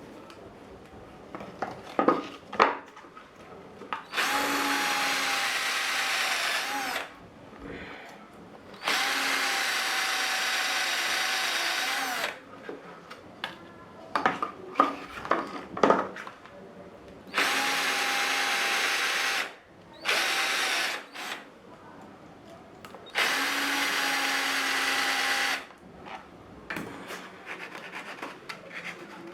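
Electric drill boring holes into 18 mm plywood, run in four separate bursts of two to three seconds each, its motor pitch steady and dipping briefly as each run ends. Short knocks and clatter of handling come between the runs.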